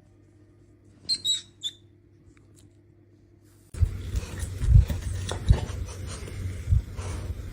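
Three short, high-pitched squeaks about a second in. Near the middle the sound changes abruptly to a rustling background with several dull thumps.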